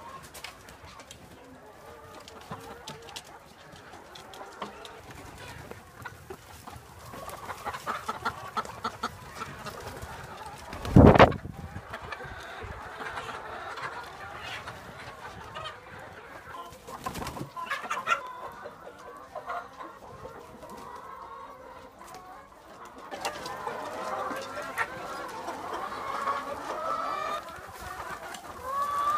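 A flock of brown laying hens clucking, busier and louder in stretches, with one loud thump partway through.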